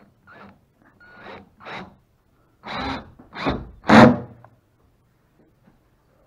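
Cordless drill driving a screw through a plywood side deck into the hull, in six short bursts, the last three longer and louder.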